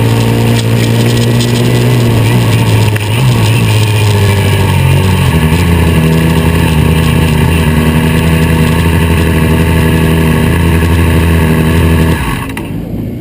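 Formula SAE race car's engine running at low, steady revs, heard close up from the car while it rolls slowly in gear. The engine note steps down a few seconds in and then holds. About twelve seconds in, the engine sound drops away abruptly as the car comes to a stop.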